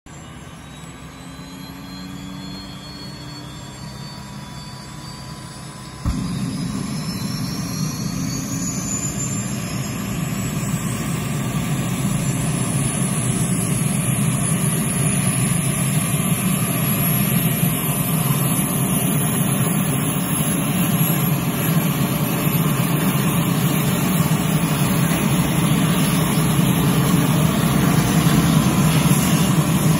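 Medical plane's engines running on the ground, with a high whine that rises slowly in pitch. About six seconds in the sound jumps suddenly to a louder low rumble, and it keeps growing louder after that.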